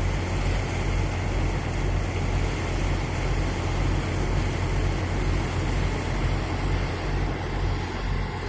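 Small tugboat's diesel engine running steadily: a low hum with a regular pulse, over a wash of noise.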